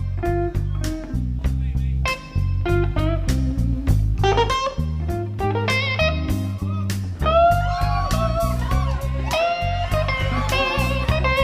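Live blues band with electric guitar lead lines full of string bends and vibrato over the backing.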